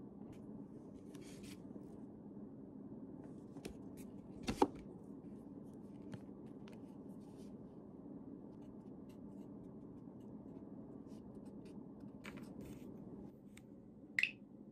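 Faint scratching and tapping of a pen writing on paper, with scattered small clicks of stationery on the desk, a sharper click about four and a half seconds in and another near the end, over a steady low room hum.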